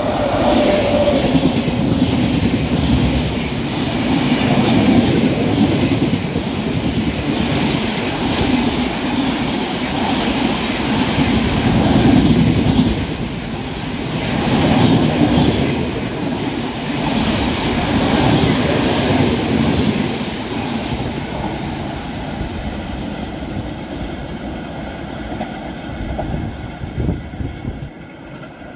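A train passing at speed: the cars rumble by with wheels clattering over the rail joints, the noise rising and falling every few seconds, then fading away over the last several seconds as the train moves off.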